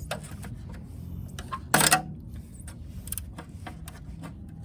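Old, brittle plastic wheel cover being worked off a steel wheel: scattered clicks and clatter, with one louder sharp crack about two seconds in. The plastic is sun-aged and cracking.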